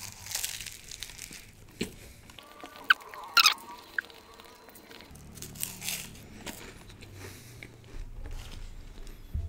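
Biting and chewing a flaky puff-pastry patty close to the microphone, the crisp pastry layers crackling. There are scattered sharp crackles, the loudest a quick pair about three and a half seconds in, then softer chewing.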